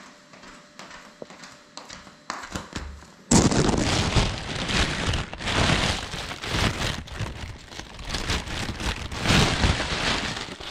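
A few faint clicks, then about three seconds in a sudden loud, dense crackling and rustling noise with many sharp strokes and no steady tone: handling and rubbing noise on the camera's microphone.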